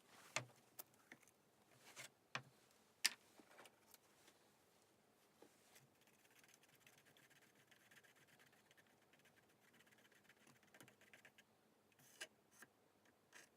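Quiet handling sounds: a few sharp clicks and taps in the first three seconds and two more near the end, with a faint scratchy rasping from about six to eleven seconds in.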